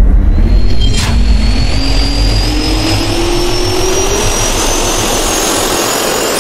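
Jet-turbine spool-up sound effect: a rising whine over a deep rumble and rushing air, with a sharp hit about a second in. It cuts off suddenly at the end.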